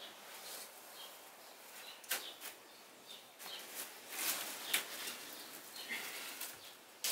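Manure fork and scoop mucking out a horse stall: the fork rustles and scrapes through crumbly straw-pellet bedding, with a few sharp clacks of the fork against the scoop.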